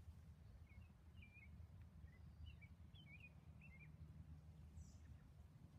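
Faint birds chirping: a loose string of short, quick, squiggly high notes over a low steady rumble.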